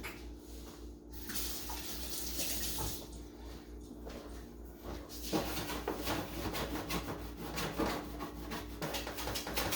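Scrubbing a small spill off a refrigerator shelf, a rubbing hiss that turns into fast, dense scrubbing strokes about five seconds in.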